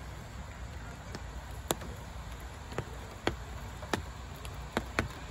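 About six sharp clicks or taps at irregular intervals, over a steady low rumble.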